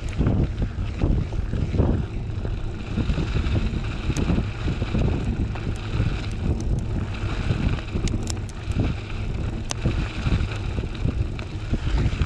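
Wind buffeting the microphone of a bike-mounted camera over the rumble of a Maxxis Minion DHR II 29x2.6 mountain-bike tyre rolling on gravel, with occasional sharp ticks.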